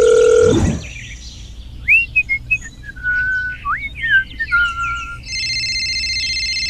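A steady telephone tone cuts off about half a second in. A run of short, sliding chirping whistles follows. About five seconds in, a phone ringtone starts with a steady high trill.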